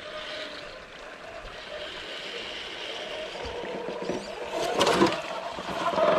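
Whine of scale RC crawler electric motors and gears as the trucks creep down a dirt bank. About five seconds in comes a loud splash and slosh as the Axial SCX-10 Dodge Power Wagon, which runs a brushless motor, drives into a muddy puddle.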